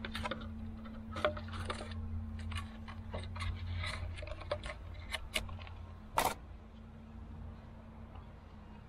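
Stiff plastic blister packaging crackling and clicking as it is handled and a small device is pulled out of it, with one sharper click about six seconds in.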